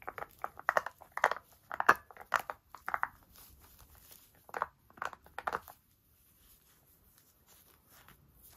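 Teething puppy chewing a spiky rubber ball, with the crinkle of the plastic-backed puppy pad under her: a quick run of short chewing and gnawing noises in the first three seconds, a few more a little past the middle, then only faint rustling.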